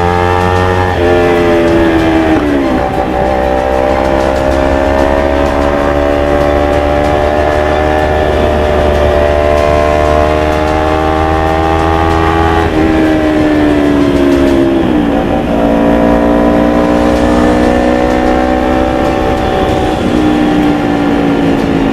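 Kawasaki Ninja 250 FI's parallel-twin engine running through a full-system Akrapovic GP exhaust while riding. The engine note climbs slowly, then drops sharply several times as gears change, and falls away for a while in the middle.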